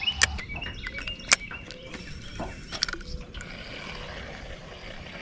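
Spinning rod and reel being handled: a few sharp clicks and knocks over the first three seconds, the loudest about a second and a half in.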